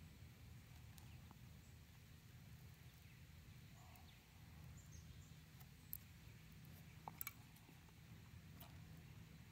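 Near silence: a faint steady low hum, with a few soft clicks about six and seven seconds in.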